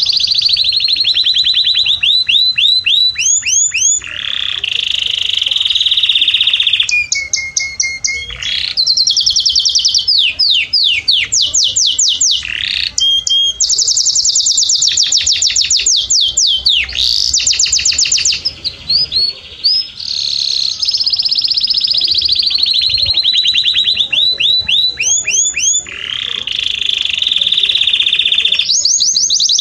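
Canary singing a continuous high-pitched song made of quick runs of repeated notes and fast trills, switching to a new phrase every second or two.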